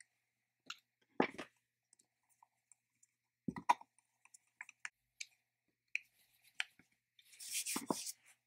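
Small clicks and knocks of a metal handle cover being handled, fitted and screwed down with a screwdriver, with two louder knocks early on and a short scratchy rustle near the end.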